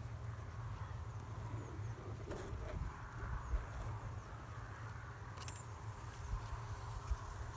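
Faint steady low rumble with soft rustling of dry reeds brushing close to the microphone, and a couple of small ticks about midway and again about two seconds later.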